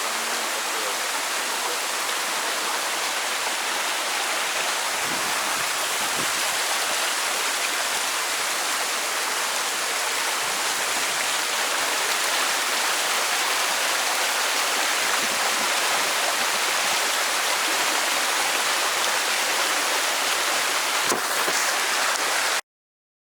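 Steady rush of falling water from a waterfall, cutting off abruptly near the end.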